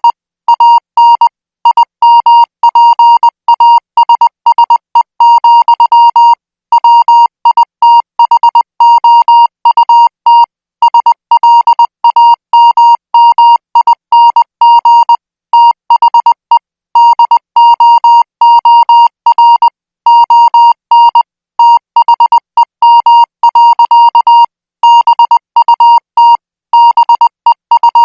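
Morse code sent at 20 words per minute: a single high, buzzy beep keyed on and off in quick dots and dashes, with short pauses between letters and words.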